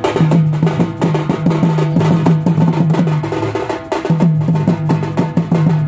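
Music with a steady, rhythmic drum beat.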